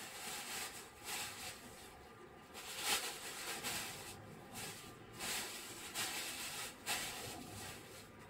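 Cabin of a Sapporo streetcar M100-series tram, quiet, with a few short hisses at irregular moments: about a second in, near three seconds, after five seconds and near seven seconds.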